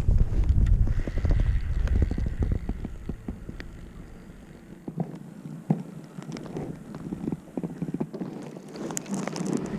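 Wind buffeting the microphone, a low rumble that dies down after about three seconds, with scattered small clicks and knocks through the rest.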